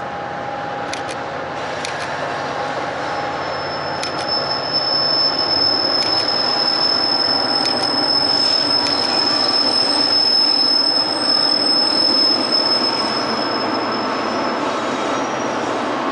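Diesel-hauled freight train crossing a steel trestle: the locomotives' engines and rolling wheels make a steady rumble that grows louder about four seconds in as the engines pass. A high steady wheel squeal sets in about three seconds in and fades out near the end, with a few paired clicks of wheels over rail joints.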